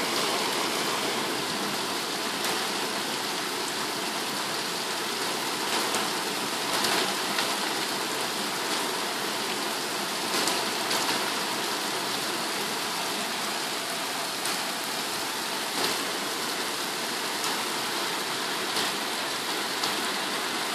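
Heavy rain falling steadily in a thunderstorm, a constant hiss through an open window, with a few faint ticks of nearby drops.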